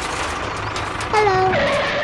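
Tractor engine running steadily with a low hum. About a second in, a louder pitched sound with falling pitch cuts in and stops abruptly.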